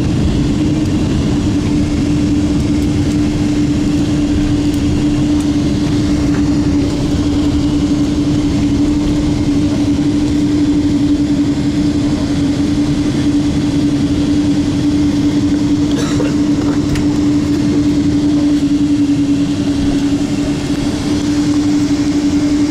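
Jet airliner cabin noise while taxiing on the ground: the engines run at idle with a steady low hum over a constant rumble.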